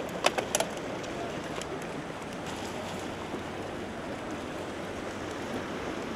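Steady rush of a fast-flowing mountain stream over rocks. A few sharp clicks come close together about half a second in.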